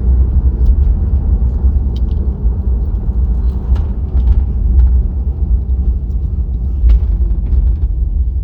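Cadillac engine running with a steady low rumble, with a few faint clicks over it.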